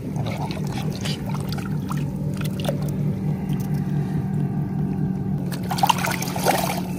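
Shallow bay water trickling and sloshing around a wading angler as a hooked fish is drawn in, with splashes in the last second or so as the fish thrashes at the surface beside his hand. A steady low hum runs underneath throughout.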